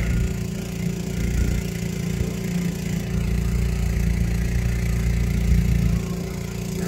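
A small motor running steadily at a constant low hum, over a deep uneven rumble.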